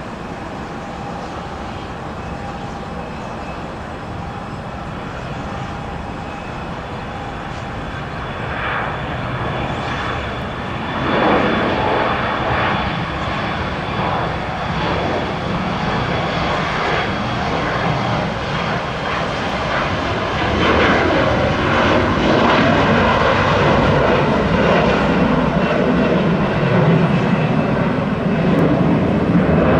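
Jet aircraft engines, a broad roar with a thin whine, growing louder in steps about a third and two-thirds of the way in as the plane comes closer along the runway.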